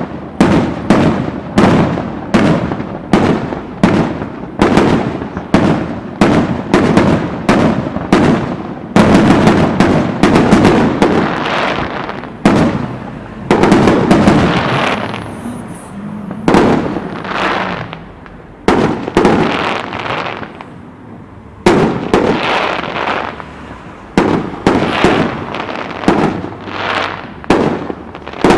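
Fireworks display: a quick run of shell bursts, about two bangs a second, that thickens into a dense stretch of overlapping bursts a third of the way in, eases off for a few seconds past the middle, then resumes as steady bangs.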